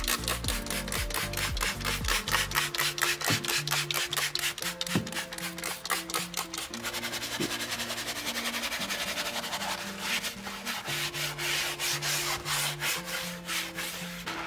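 Detailing brush scrubbing a wet plastic door sill trim, in rapid back-and-forth strokes that quicken in the middle, over soft background music.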